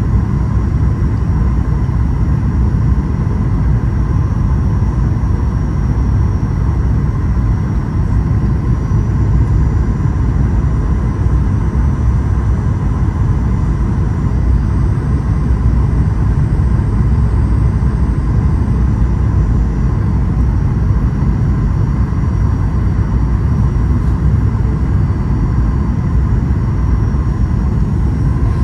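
Steady cabin noise inside a Boeing 737-800 airliner: the constant low rumble of its CFM56 turbofan engines and airflow, with a faint steady whine above it.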